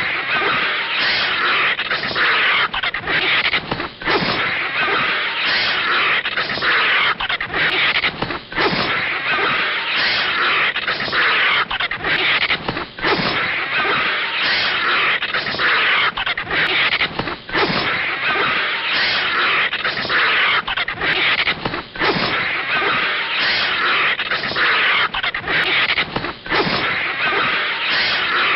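Cartoon sound effects of a snake and vulture fighting: a harsh, steady hiss with short breaks every second or two.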